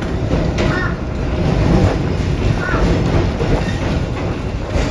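Steady low rumble of an electric trolley car running on its rails, with a few faint, short high squeaks.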